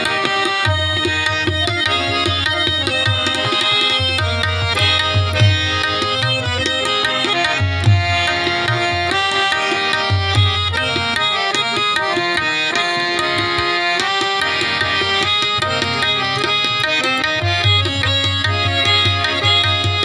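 Qawwali music: harmoniums playing a held melody over a steady tabla beat, with rhythmic hand clapping.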